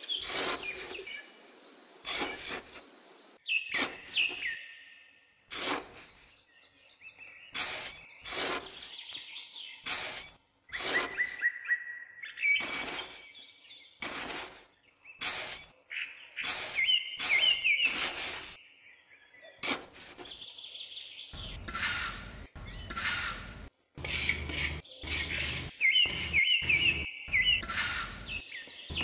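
A miniature metal shovel scraping and chopping into damp sand in repeated short strokes. Birds chirp throughout.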